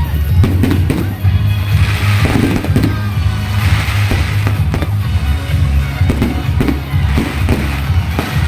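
Fireworks popping and crackling, with two hissing bursts about two and four seconds in, over loud music with a heavy steady bass.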